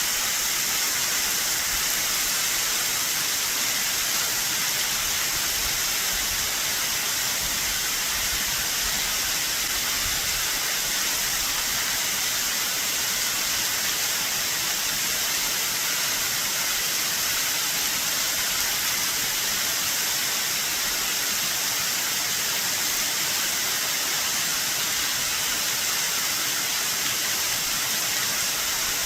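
Mary Jane Falls, a waterfall cascading off cliffs in full spring run-off, makes a steady rushing hiss of falling water and spray.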